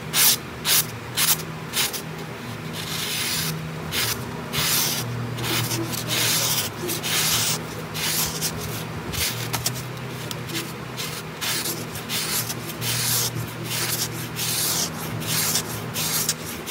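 A freshly stropped kitchen knife slicing through a sheet of paper held in the air, a paper-cutting test of the edge's sharpness. It starts with quick, crisp slices about two a second, then goes on with longer, denser slicing strokes.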